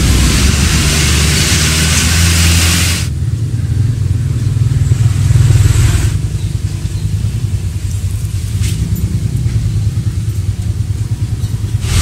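A motor vehicle engine running, its sound changing abruptly about three seconds in and again about six seconds in.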